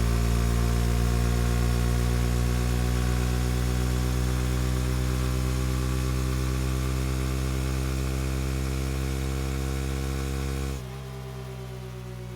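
Suzuki motorcycle engine idling steadily. About eleven seconds in, the sound drops suddenly in level with a slight dip in pitch.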